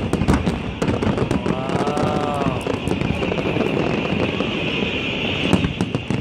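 Aerial fireworks shells bursting in a dense, irregular run of bangs and crackles throughout.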